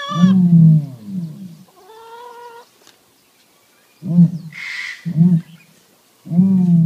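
Ostrich calls: short pitched calls that dip and rise in pitch, a held higher note about two seconds in, then three short calls about a second apart, with a brief hiss between the first two.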